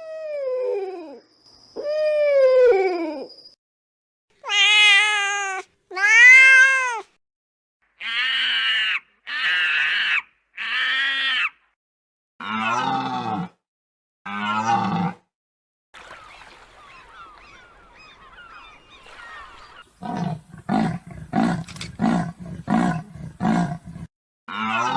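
A string of separate animal calls, one after another with short gaps, among them cat meows that rise and fall in pitch. Near the end comes a fast run of short pulsed calls.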